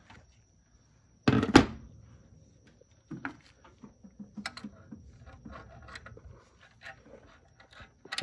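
Light knocks and clicks of tools and metal parts being handled, with one sharper thunk about a second and a half in. A faint, steady high whine runs underneath.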